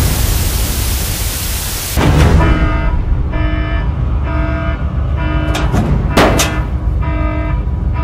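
Cartoon tank-battle sound effects: a dense hiss for about two seconds, then a heavy low rumble broken by a few sweeping blasts, over a steady tone that pulses about every 0.8 seconds.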